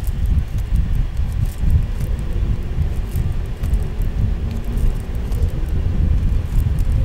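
Unsteady low rumbling handling noise with scattered faint ticks, from polyester macramé cord and a crochet hook being worked by hand close to the microphone.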